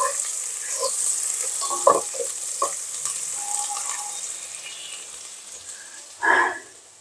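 Sliced onions sizzling in hot oil in a large nonstick pot, with a wooden spatula knocking and scraping as they are stirred. The sizzle grows quieter in the second half, and a short clatter comes near the end.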